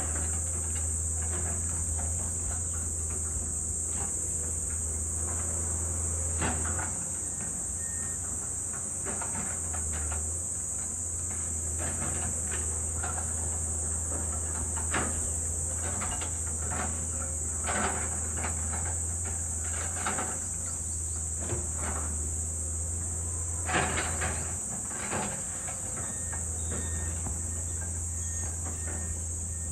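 A steady high-pitched insect drone, over the low hum of distant excavator diesel engines, with scattered knocks and clanks from the machines at work; the loudest knocks come in a cluster about 24 seconds in.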